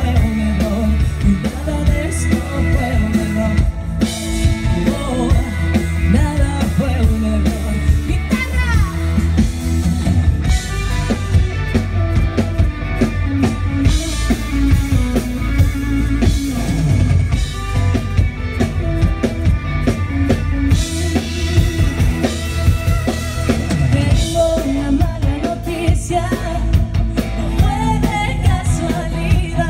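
Live pop-rock band playing a song: a woman sings lead over electric guitar, acoustic guitar and a drum kit.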